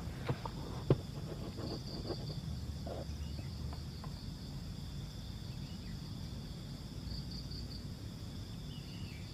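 Insects chirping steadily in a high even drone, pulsing slightly stronger twice. A couple of light clicks sound in the first second as the rifle is handled.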